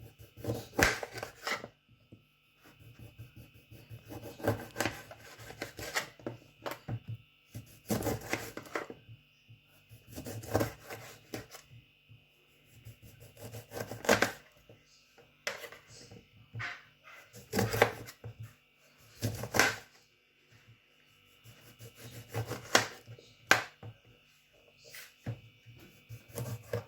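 Knife slicing through a lime on a cutting board, in short runs of cuts every few seconds, over a faint steady hum.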